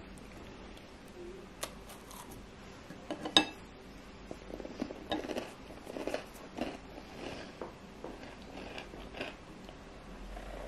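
A crisp almond biscuit being bitten and chewed close to the microphone. There is a sharp crunch about three and a half seconds in, then a run of softer crunching chews at about two a second.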